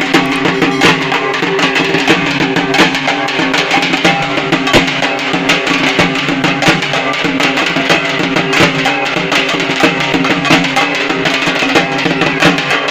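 Background music with fast, steady drumming over sustained pitched instruments.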